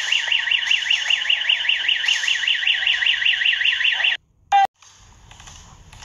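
Electronic alarm warbling rapidly up and down, about six swings a second. It cuts off suddenly about four seconds in.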